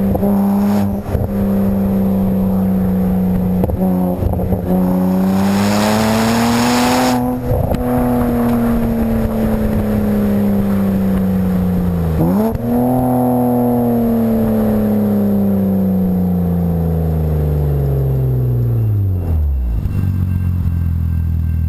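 BMW 135i's turbocharged inline-six on a Berk full sport exhaust with catless downpipes, running under load with a slowly climbing note and a burst of hiss about six seconds in. About twelve seconds in the pitch dips sharply and comes back. It then winds steadily down over several seconds and settles into a low, steady idle.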